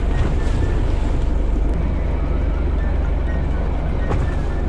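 Fishing boat's engine running at idle with a steady low rumble, with wind buffeting the microphone and sea noise over it. A brief click about four seconds in.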